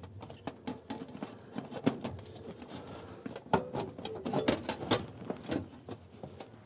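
Irregular clicks, taps and light rattles of metal vent pipe and fittings being handled and fitted together.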